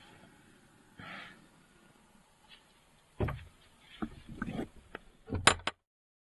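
A panelled front door being pushed shut: a dull thud about three seconds in, then a run of knocks and rattles, and a cluster of sharp metal clicks, the loudest sound, just before everything cuts off to silence.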